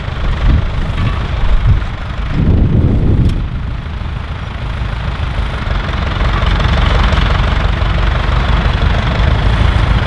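McCormick International tractor's diesel engine running steadily under load as it pulls a mounted plough through the soil, with wind buffeting the microphone.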